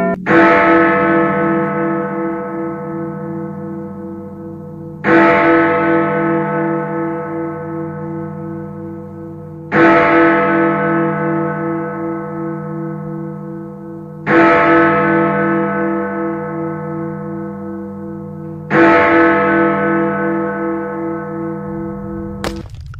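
A large bell struck five times, about every four and a half seconds, each stroke ringing out with a pulsing hum that slowly fades. Just before the end the ringing cuts off suddenly and a burst of clattering noise begins.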